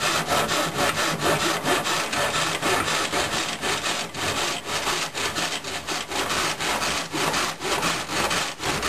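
Thin-kerf Marples pull saw cutting through a convolute-wound paper tube, quick even back-and-forth strokes of rasping paper.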